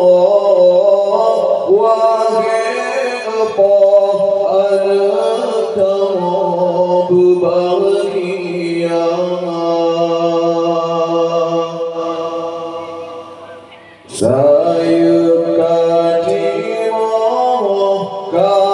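A man singing an Acehnese qasidah into a microphone in long, drawn-out, ornamented notes. About three-quarters of the way through, his voice trails off and then comes back sharply on a new phrase.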